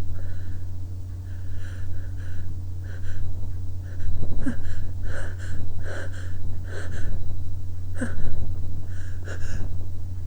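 A person's short, sharp gasping breaths and sniffs, about fifteen in irregular succession: the catching breaths of someone working up to a sneeze. A steady low hum runs underneath.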